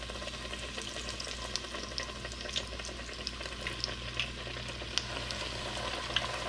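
Breaded chicken pieces frying in hot olive oil in a deep stainless steel pot: a steady sizzle with scattered crackles and a few sharper pops.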